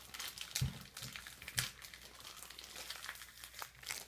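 Small plastic bags crinkling as they are handled, with scattered light clicks and rustles.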